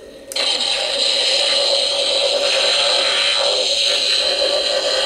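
Hasbro Spengler Neutrona Wand replica firing: its built-in speaker plays the electronic proton-stream sound effect. It cuts in suddenly a moment in, as a loud, steady hiss with a shrill high tone over it.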